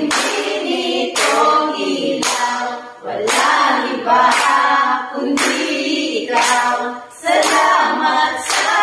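A mixed group of voices singing together without other instruments, with a sharp hand clap at the start of each phrase, roughly once a second.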